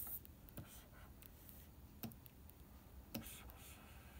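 A few faint, sharp taps and clicks of a stylus on a pen display's screen, some followed by a brief faint scratch of a pen stroke, against near silence.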